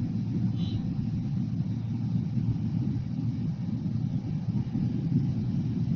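Steady wind buffeting on the microphone and the rumble of a Bajaj Avenger 150 Street motorcycle, its single-cylinder engine running at highway speed.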